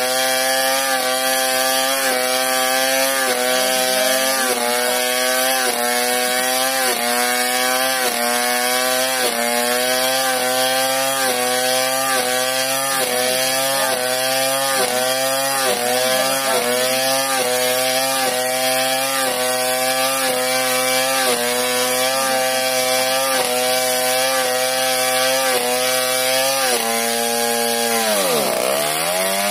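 Chainsaw ripping lengthwise through a sengon (albizia) log. The engine note sags and recovers about once a second as the bar is worked into the cut. Near the end the engine drops almost to idle and revs back up.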